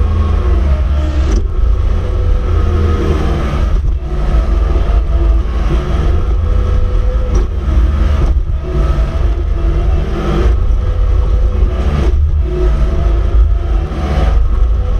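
Caterpillar skid steer's diesel engine running hard while plowing snow, its pitch rising and falling with throttle. A few short clunks come through the engine sound.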